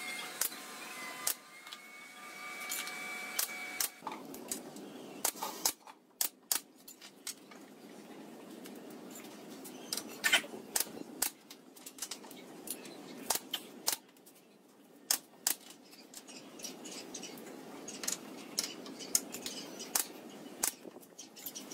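A cordless drill runs as it drives a screw into wooden slats, its whine stepping up in pitch about two seconds in and stopping about four seconds in. After that come scattered sharp clicks and light knocks of wood and hardware being handled.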